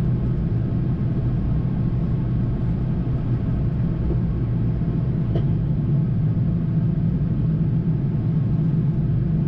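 Steady flight-deck noise of a Boeing 787-9 in flight: an even low rumble of airflow and engines with a faint hum, unchanging throughout.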